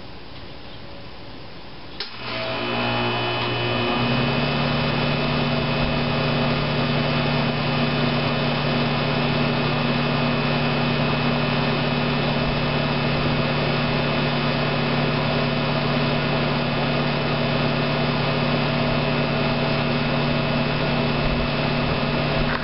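2002 Rheem 10 SEER 2.5-ton central air conditioner condenser with a Copeland scroll compressor starting up: a click about two seconds in, then the compressor and condenser fan come up to speed over a couple of seconds and settle into a steady, loud running hum.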